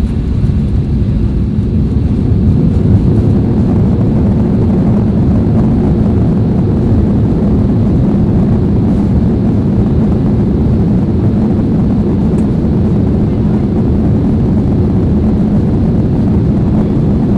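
Cabin noise of a Boeing 737-800 in motion: a loud, steady rumble from its CFM56 jet engines and the airframe that swells slightly over the first couple of seconds, then holds.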